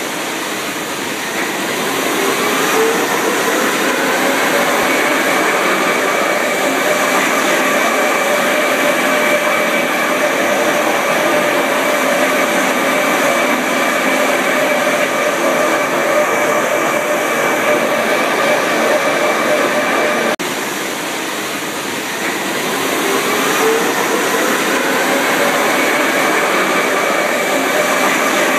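Electric rack railcar of the Pilatus Railway running, its traction motors whining and rising in pitch as it picks up speed, then holding a steady whine over constant running noise. The sound breaks off suddenly about two-thirds through, and the same rising whine starts again.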